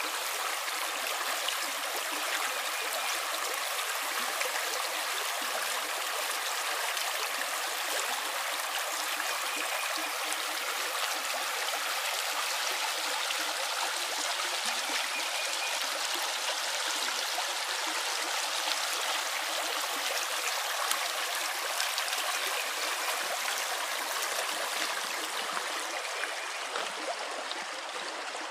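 Moving water running steadily: an even, continuous rush and trickle with little deep sound in it.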